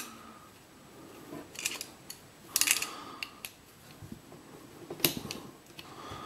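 Hand tools working on a Yale anti-snap lock cylinder as it is taken apart: a few sharp metal clicks and small scrapes, with a short cluster of clicks about two and a half seconds in and another click near five seconds.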